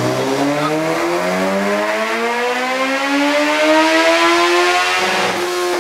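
Second-generation Suzuki Hayabusa's inline-four engine, fitted with a Brocks Performance full exhaust system, revving up under full throttle on a dyno: the pitch climbs steadily for about five seconds, breaks briefly, then holds high.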